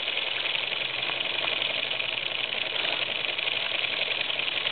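Gakken kit toy steam engine running fast under steam: a steady, rapid mechanical chatter that does not let up.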